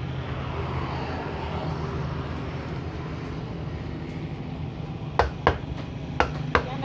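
Fish-cutting knife striking a wooden chopping block four times in two quick pairs near the end, chopping through fish, over a steady low motor hum.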